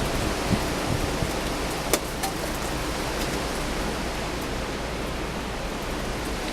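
Blizzard wind blowing steadily: an even hiss with a low rumble underneath and a couple of faint ticks about two seconds in.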